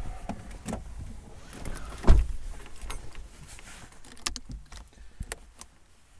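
Car door shutting with a heavy thump about two seconds in, heard from inside the cabin, followed by rustling and several sharp clicks as the occupants settle in.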